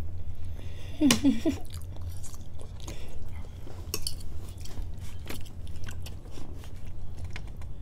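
Metal forks clicking and scraping on plates of spaghetti, with chewing sounds and a short burst of voice about a second in, over a steady low hum.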